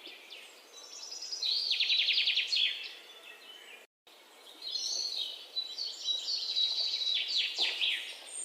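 Pet budgerigars chirping and warbling in a flurry of quick, high chirps. The sound drops out briefly about four seconds in, then the chirping picks up again.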